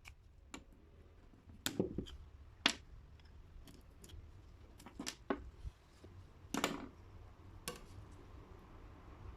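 Small metal objects being handled on a work surface: about five sharp clicks and short scrapes at irregular intervals, the loudest about two seconds and six and a half seconds in.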